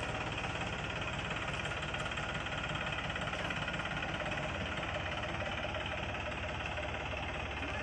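Eicher 380 tractor's diesel engine running steadily with a knocking beat while it pulls a fully loaded trolley; its low note changes about halfway through.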